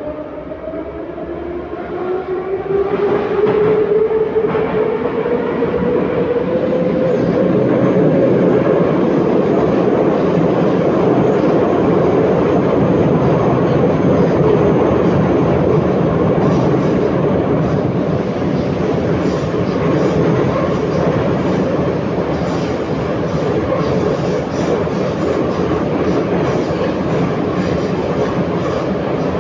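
Metro car 81-714.5 underway, heard from inside the car. The traction drive whines in several tones that climb in pitch over the first eight seconds or so as the train accelerates, then gives way to a steady loud running rumble.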